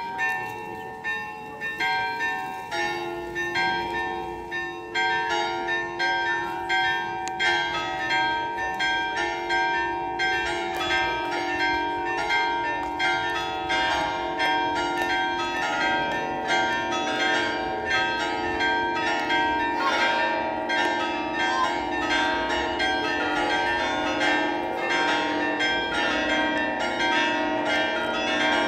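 Many church bells of different pitches ringing a festive peal from the basilica tower's set of fixed bells. The strikes quicken and thicken, with deeper bells joining a few seconds in and again about halfway, until the notes blend into one continuous ringing.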